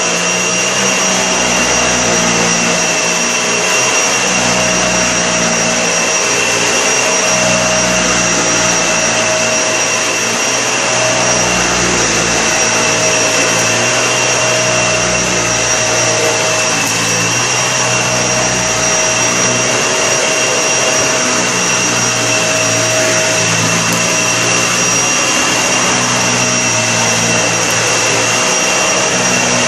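Vacuum cleaner running steadily, its motor giving a constant high whine over a rushing hiss, with a lower hum that wavers every second or two.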